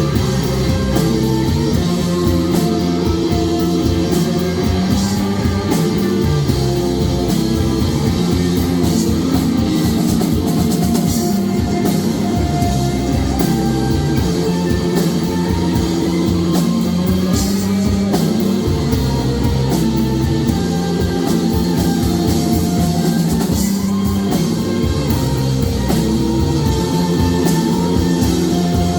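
Rock band playing an instrumental passage live, with guitar and drum kit, steady and loud.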